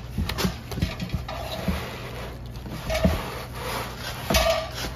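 Packing foam, plastic wrap and cardboard rustling and scraping as a steel pressure cooker is unpacked from its box, with a series of sharp knocks and clunks; the loudest come about three seconds in and near the end.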